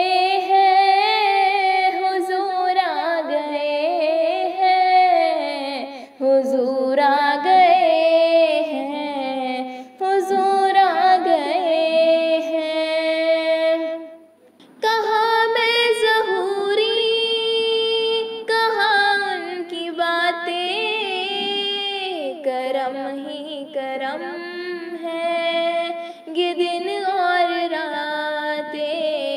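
A woman singing an Urdu naat in long, held, ornamented phrases, with short breaths between lines and the longest pause about fourteen seconds in.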